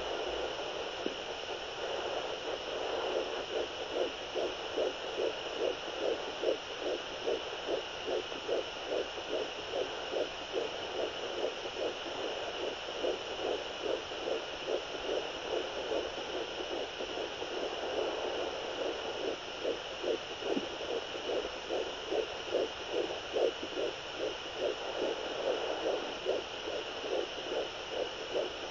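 Fetal heartbeat picked up by a Doppler heart monitor: rapid, regular pulses, about three a second, over a steady hiss.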